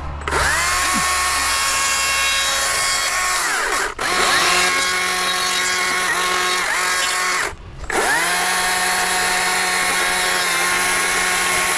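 Electric power tool running in three bursts of a few seconds each with a steady whine. Each burst winds down in pitch when the tool is switched off, with brief gaps between them.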